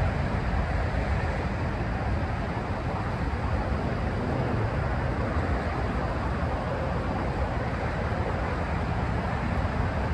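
Steady outdoor background noise: a low, unbroken rumble with a hiss above it and no distinct events.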